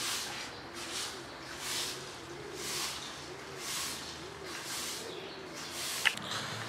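A dove cooing in a run of low, rounded notes, over a hiss that swells and fades about once a second. A sharp click about six seconds in.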